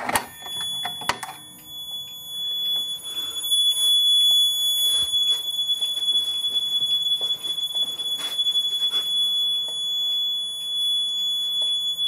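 A Notifier NBG-10 fire alarm pull station is pulled with a sharp click, setting off the system's Faraday 6304B piezo horn sounder. The sounder gives a steady, unbroken high-pitched tone.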